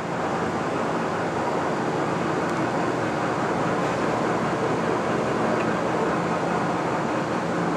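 Leblond 31-by-108 engine lathe running under power with a steady mechanical noise and a faint low hum, its carriage traversing along the bed on the leadscrew with the half nut engaged.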